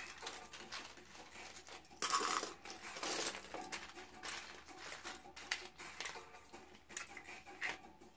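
Loose plastic Lego pieces clicking and clattering against each other and the tabletop as hands rummage through and sort a pile, with louder rattles about two and three seconds in.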